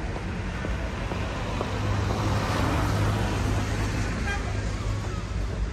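Street traffic: a motor vehicle passes close by, its engine rumble and tyre noise swelling in the middle and then easing off. A brief high tone sounds about four seconds in.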